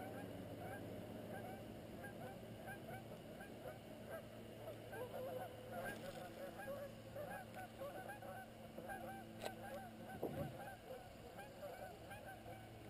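A flock of geese honking faintly, a dense, continuous chorus of many short calls, with a few knocks in the middle.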